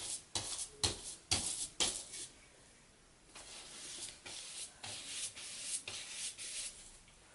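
Paintbrush scrubbing across paper in a series of quick, rough strokes, then after a short pause a run of softer strokes.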